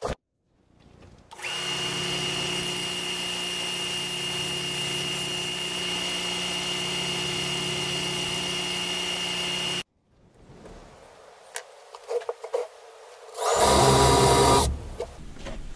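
A bench belt-and-disc sander runs steadily for about eight seconds with a constant high whine, sanding a stick down to a quarter-inch dowel for a perch. After a short gap with a few knocks, a Ryobi cordless drill spins up and bores into a board for about a second, the loudest sound.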